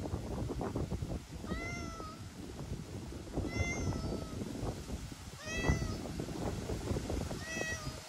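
Stray cat meowing four times, about one call every two seconds, each call a little under a second long. Strong wind buffets the microphone throughout with a low rumble.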